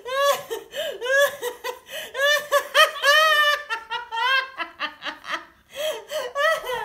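A woman laughing hard, a long run of short, high laughs several a second, pausing briefly a little past halfway before starting again.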